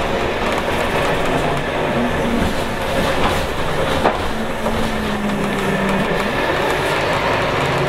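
Cabin sound of a Scania K280UB city bus under way: its rear-mounted 9.3-litre inline five-cylinder turbo diesel running through a ZF Ecomat six-speed automatic, with road rumble. Two sharp knocks from the body come about three and four seconds in.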